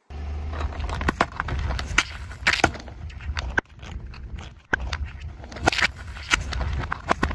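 Car tyre rolling slowly over plastic dessert cups on asphalt: a low rumble with a run of sharp cracks and pops as the plastic splits and bursts. The sound drops away briefly in the middle, then starts again.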